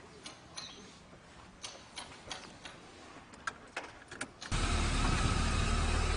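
A few light clicks, then about four and a half seconds in a car engine suddenly comes in, running steadily with a low rumble.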